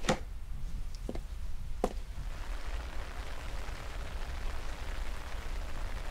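A couple of soft knocks, then steady rain that fades in about two seconds in.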